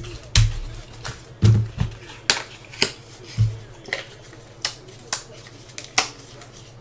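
Irregular sharp clicks and snaps, about a dozen, with the loudest near the start: a trading card box and its packaging being opened and handled.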